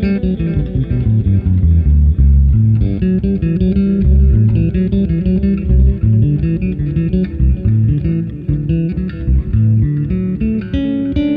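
Electric bass guitar playing a busy run of quick plucked notes through a delay effect, the notes repeating and overlapping.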